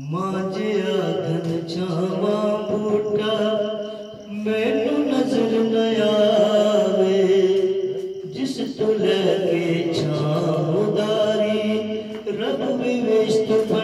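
A man singing long, drawn-out phrases, his held notes bending in pitch, with a short break between phrases about every four seconds.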